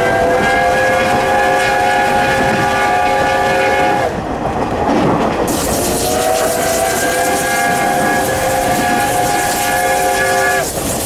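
Steam whistle of JNR Class C12 tank locomotive No. 66, blown full open in two long blasts about two seconds apart, heard from a carriage of the moving train. Each blast sounds several notes at once and slides up slightly in pitch as it opens. Under the whistle, the train runs on over the rails.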